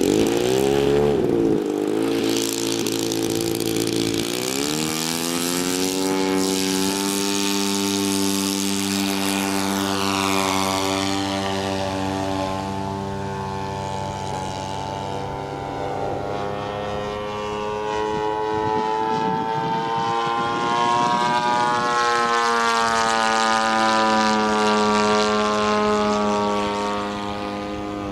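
Converted Husqvarna two-stroke chainsaw engine turning the propeller of a giant-scale radio-control model airplane, running continuously. Its pitch climbs about four seconds in, sags through the middle, rises again and drops near the end.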